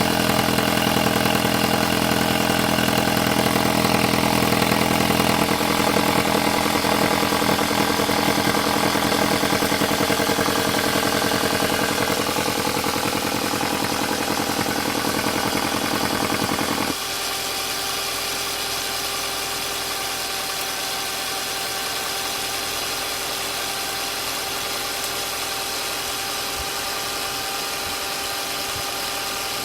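Volkswagen Passat B5+ 1.8-litre turbocharged four-cylinder (AWM) idling at warm-up revs, with the knock from around the turbocharger that the owner is recording. About halfway through the engine sound drops abruptly and runs on steadier and quieter.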